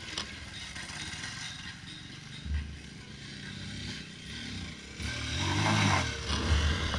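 Motocross dirt bike engine running as the bike climbs toward the microphone and pulls up, growing louder from about five seconds in.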